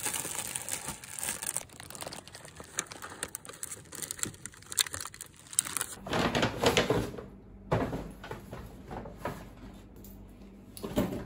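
Plastic bread bag and grocery bags crinkling as they are gathered up by hand. About halfway through it changes to a quieter room, where bags are rustled and knocked as they are lifted off a chair.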